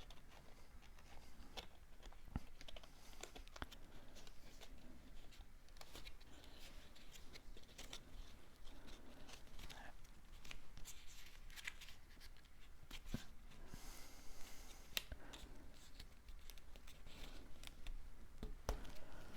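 Faint scissors snipping cardstock in scattered short cuts, with paper handled and slid between them.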